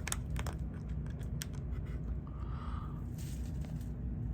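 A few light clicks and scrapes from handling small objects, with a brief rustle later, over a steady low hum.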